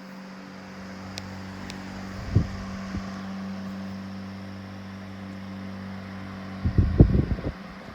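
Emerson 12-inch brass-bladed oscillating table fan running: a steady electric motor hum with the rush of moving air. Low thumps come about two and a half seconds in and again in a cluster near the end.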